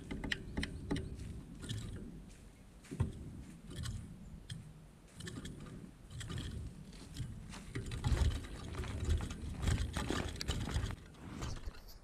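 Irregular small clicks and rattles of a great tit scrabbling and fluttering inside a wooden trap cage with wire bars, over a low rumble.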